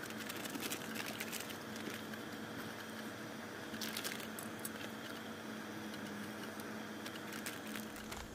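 Faint, steady hiss of a pressurised liquid-fuel camp stove burning on low under a kettle, with small handling clicks and a short crinkle of a paper coffee bag about four seconds in.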